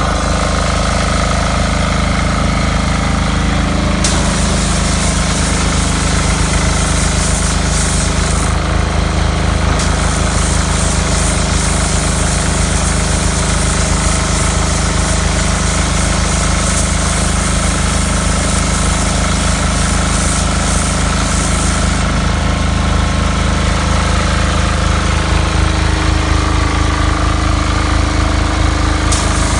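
Pressure washer running steadily with a fast pulsing pump, drawing its water from a bucket. A high hiss cuts in about four seconds in, drops away a few times and comes back near the end.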